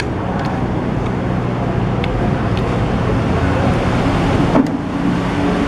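Steady road-traffic rumble with a low hum underneath, faint background voices and a few light clicks.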